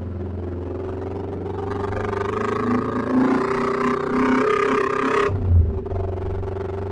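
Motorcycle engine running, getting louder and fuller from about a second and a half in; the higher part of the sound cuts off suddenly about five seconds in, leaving a low engine rumble.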